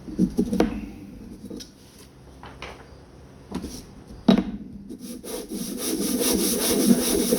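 Knife handle scales being sanded by hand on coarse 60-grit sandpaper. A few knocks and short scrapes come first, then fast, steady back-and-forth sanding strokes start about five seconds in. The sanding roughs the surface with deep scratches for epoxy.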